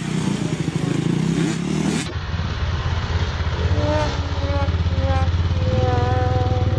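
Several motocross bikes' engines running and revving. A deep, steady engine note sits under higher-pitched engines that rev up and down again and again as the small bikes pull away.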